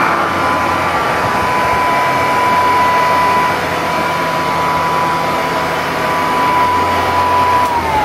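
1935 Singer R1 upright vacuum cleaner running, a steady motor whine over the rush of air. Just before the end the whine starts to drop in pitch as the motor winds down.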